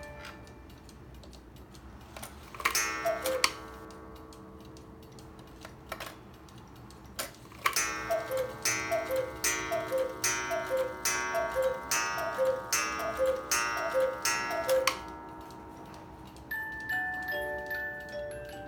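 Hones 'Little Wanderer' chalet cuckoo clock striking: a cuckoo call of two falling notes with a gong strike about three seconds in, then after a couple of clicks a run of about ten cuckoo calls, each with a gong strike, evenly spaced. The pendulum ticks underneath, and its music box starts playing a tune near the end.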